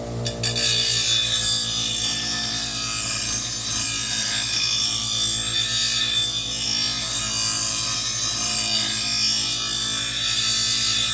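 Bench grinder's spinning stone grinding the edge of a dull steel lawn mower blade: a steady harsh hiss starts a moment in over the grinder motor's hum as the blade is run back and forth against the stone to put a sharp edge on it.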